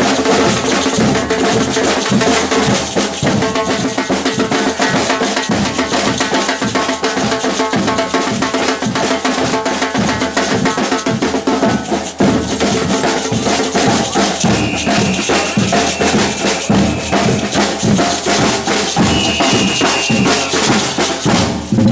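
Batucada samba percussion band playing a steady driving rhythm: deep bass drums under snare drums and other hand percussion. A long high tone sounds twice over the drums in the second half.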